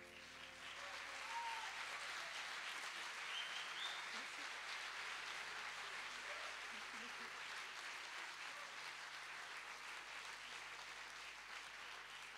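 Audience applauding: the clapping builds over the first second or so, holds steady, then eases slightly near the end.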